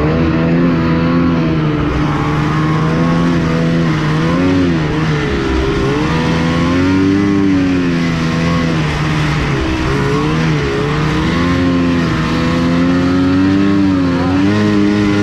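Snowmobile engine running under load, its pitch rising and falling repeatedly as the throttle is worked.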